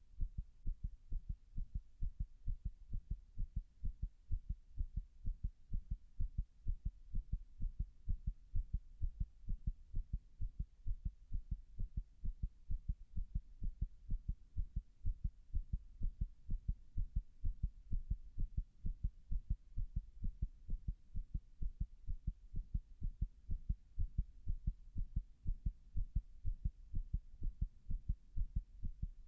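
Human heart sounds picked up close against the chest: a quick, continuous train of low thudding beats with nothing else audible. The recording is made with the chest pressed against a wall, and the uploader presents the heartbeat as arrhythmic.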